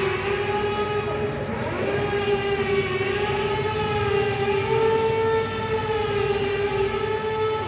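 Danger-alarm siren holding one long, high wailing tone that wavers slowly in pitch, with a brief dip about two seconds in.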